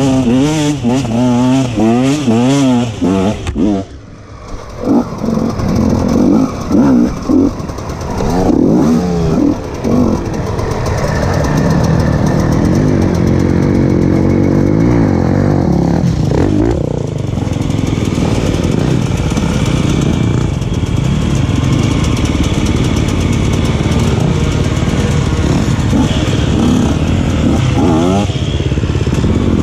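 A 125 cc two-stroke dirt bike engine (KTM 125 SX) being revved hard. For the first few seconds the revs rise and fall quickly, then they dip briefly. Short throttle blips follow, and from about ten seconds in it settles into steadier high-revving running.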